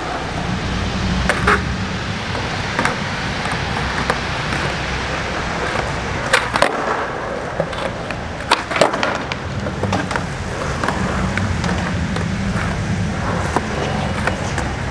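Skateboard on Tensor Mag Light trucks rolling over smooth concrete with a steady low rumble from the wheels. Several sharp cracks break through from the tail popping and the board landing during flatground flip tricks, some coming in quick pop-and-land pairs.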